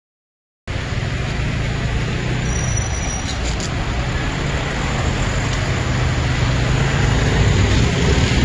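Silence at first, then a sudden start of steady street traffic noise: engines of cars and motor scooters running in slow, congested traffic, with a low hum.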